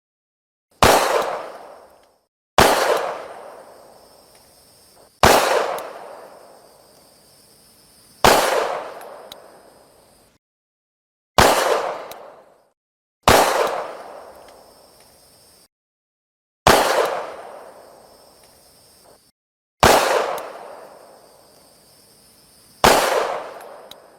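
Pistol shots: nine single gunshots a few seconds apart at uneven spacing. Each is a sharp crack followed by a tail that fades over a second or two.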